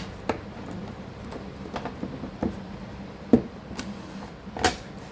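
Irregular small clicks and knocks, the sound of laptop parts and small tools being handled during disassembly. The sharpest knock comes about three seconds in, over a faint steady hum.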